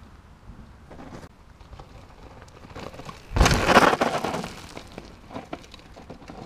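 Mountain bike tyres crunching over a loose gravel and dirt trail as the bike passes close by, loud for about a second starting a little over three seconds in, then fading as it rides away.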